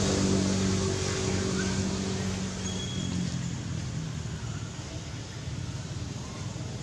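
A motor vehicle's engine hum fading away over the first few seconds, leaving a steady outdoor hiss with a few brief high chirps.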